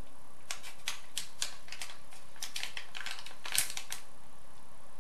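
Plastic candy bag crinkling and crackling in the hands as a series of irregular sharp clicks, a few a second, with one louder crackle about three and a half seconds in.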